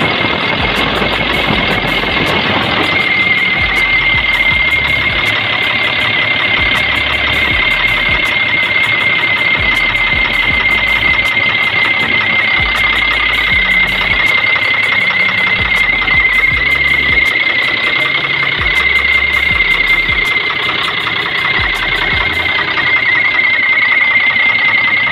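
DL1416 engine running steadily just after a valve-clearance tune-up, its valve cover off so the rocker arms are open. A steady high whine comes in about three seconds in and holds over the engine noise.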